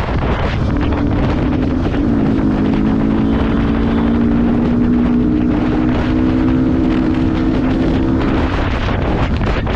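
Yamaha R15's single-cylinder engine running at a fairly steady cruising pace, its note stepping slightly about two seconds in, under heavy wind noise on the microphone.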